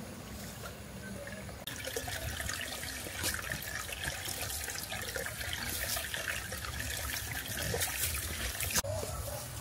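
Running water trickling and splashing, starting about two seconds in.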